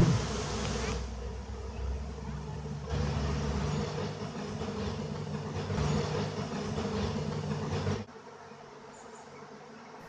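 Honey bee swarm issuing from its hive: thousands of bees flying at once, a dense, steady buzzing hum. About eight seconds in it drops abruptly to a quieter hum.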